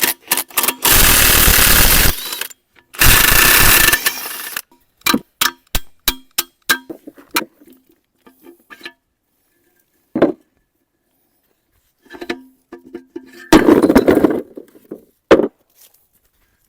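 Metal knocking and clattering as a mini excavator's bucket is swapped. There are two loud rattling bursts of a second or so, then a quick run of sharp knocks, a lone knock, and another loud burst near the end.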